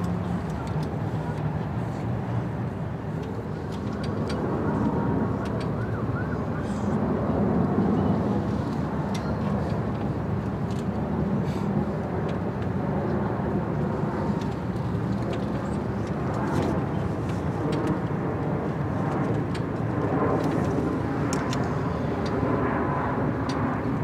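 Steady low outdoor rumble, with faint scattered clicks.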